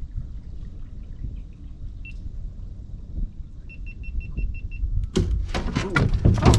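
A catfish rod getting a bite: a quick run of high electronic beeps, then from about five seconds in loud, irregular clicking from the baitcasting reel's clicker as a fish pulls line off, under a low rumble of wind and water.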